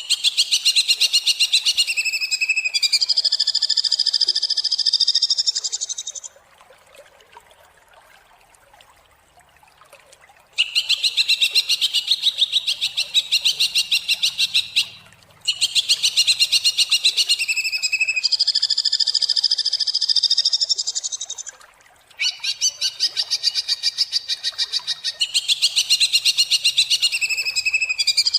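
Greater green leafbird (cucak hijau) singing harsh, rapid-fire phrases, four times with short pauses, the first pause about four seconds long. Each phrase opens with a fast rattling run of sharp notes and ends in a buzzy, held trill.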